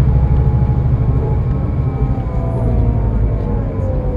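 Scania K320IB bus heard from inside its cabin on the move: a heavy low engine and road rumble that eases about a second in, with a drivetrain whine that falls slowly in pitch.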